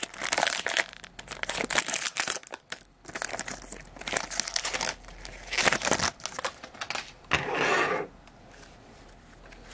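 Foil wrapper of a jumbo trading-card pack being torn open and crinkled by hand, in irregular rustling and crackling that dies down about eight seconds in.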